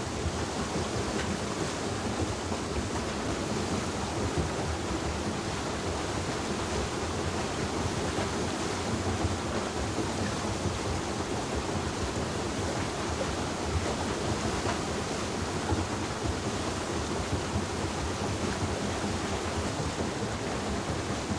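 Steady rush of water pouring and splashing off the buckets of a turning mill waterwheel.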